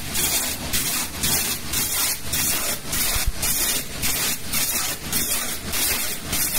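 Water jet cutting machine's high-pressure jet hissing as it cuts, pulsing in a steady rhythm about three times a second.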